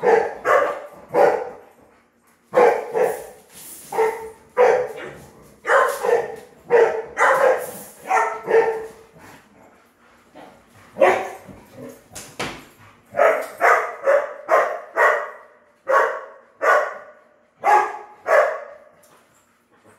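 A dog barking over and over, in runs of sharp barks about a second apart with a couple of brief pauses.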